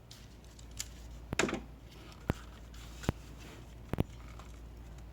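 Several sharp clicks and knocks, about a second apart, from metal tools and parts handled during cylinder head removal on a B18B1 engine, over a steady low hum.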